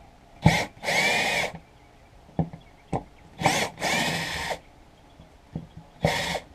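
Cordless drill/driver backing out the screws that hold the old trolling motor foot switch, in several short runs of a second or less, with small clicks in between.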